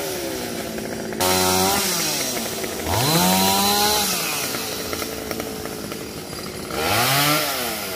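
Petrol chainsaw revved hard three times, about a second in, at three seconds and near the end, dropping back to a lower run between the surges.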